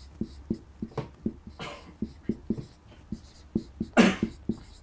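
Marker pen writing on a whiteboard: a string of short squeaky strokes, about two to three a second. A brief, louder rush of noise comes about four seconds in.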